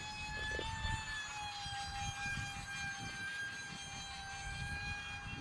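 E-flite UMX A-10's 30 mm electric ducted fans whining in flight at a steady high pitch that wavers slightly with the throttle, over wind rumble on the microphone.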